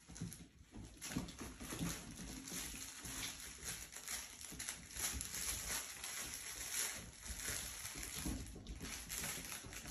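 Mini goldendoodle puppies playing with toys: an irregular, busy scuffling and rustling of paws and plush toys, with puppy noises mixed in.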